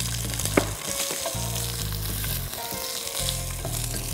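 Boiled polao rice sizzling as it fries in hot ghee in a pot while being stirred with a wooden spatula, with one light knock about half a second in.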